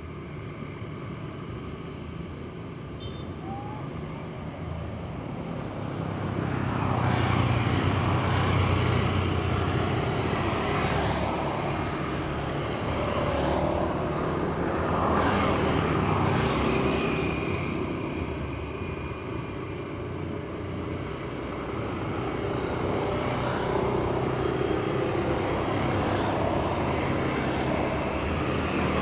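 Small inboard motor pushing a fishermen's bamboo raft, running steadily under way. Its drone swells and fades in loudness as the raft travels, growing louder near the end as it comes closer.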